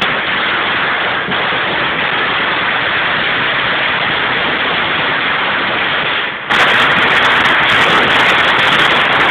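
A string of small Chinese firecrackers going off in a rapid, continuous crackle, growing louder about six and a half seconds in.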